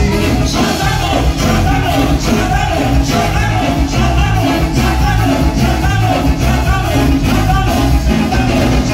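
A live tropical dance band playing loud, amplified music with a steady beat and heavy bass.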